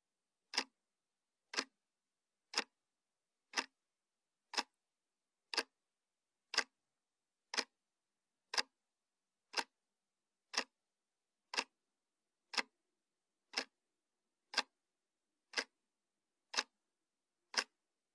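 Clock-tick sound effect of a quiz answer timer: one sharp tick each second, with silence between the ticks.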